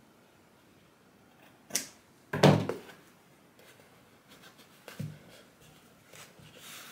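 Handling knocks: a sharp click, then a loud thud about two and a half seconds in, and a lighter knock around five seconds, with faint rustling between.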